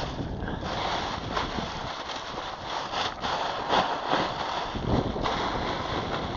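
Wind buffeting the microphone, with a few brief knocks.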